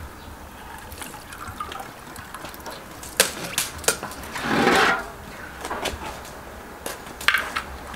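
Soy sauce and wet fermented soybean mash being strained and scooped over a basin while the paste is separated from the soy sauce: liquid splashing and dripping, with a few sharp clinks of the metal strainer and plastic bowl and a longer splash about halfway through.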